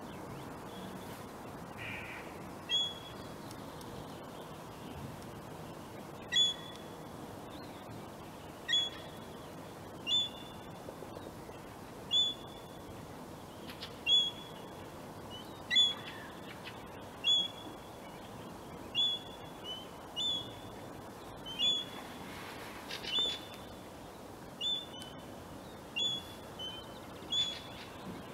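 A bird calling over and over, a short high call roughly every second and a half, over a faint steady background hiss.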